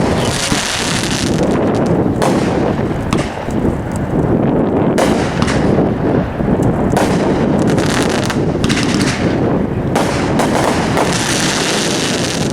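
Legend brand Thunder Knight, a 500-gram consumer fireworks cake, firing a dense, continuous run of shots and aerial bursts with no pause.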